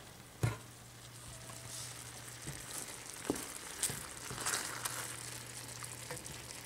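Chicken alfredo pasta with vegetables sizzling quietly in a pan while being stirred, with a few light knocks of the stirring utensil, the loudest about half a second in. A steady low hum runs underneath.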